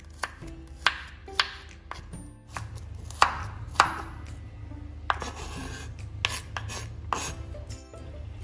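A kitchen knife cutting raw carrot into matchstick strips on a wooden cutting board: irregular crisp chops as the blade goes through the carrot and knocks the board, the loudest two a little past three seconds in. The chopping stops shortly before the end.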